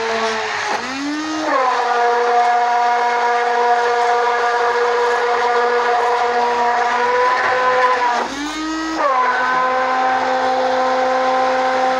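Electric hand blender whisking lassi made from curd and maize flour: a steady motor whine whose pitch dips and climbs back up twice, about a second in and about eight seconds in.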